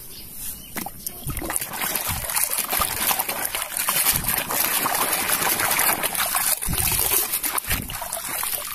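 Plastic toy excavator being swished and scrubbed by hand in muddy water: continuous splashing and sloshing that builds up about a second and a half in, with a few dull knocks.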